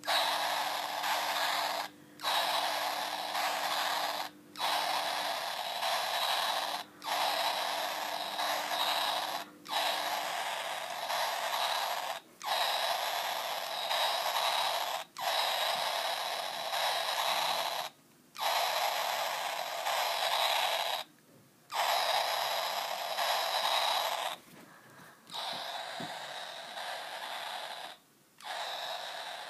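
Red plastic toy gun's electronic sound effect, a rattling, hissing buzz fired again and again. It comes in bursts of two to three seconds with short breaks between, about ten times, and the last few are quieter.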